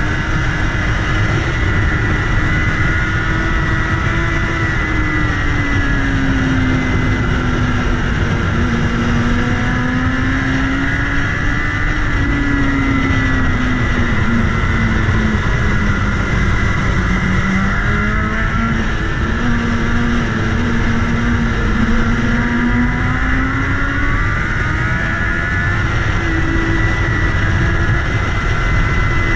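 BMW S1000RR inline-four engine running under way, its note slowly rising and falling with the throttle through the bends, over steady wind noise.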